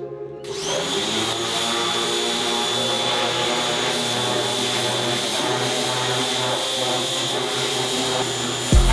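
A machine running steadily: a loud, even hiss with a constant high whine. It starts about half a second in and cuts off just before the end, with background music underneath.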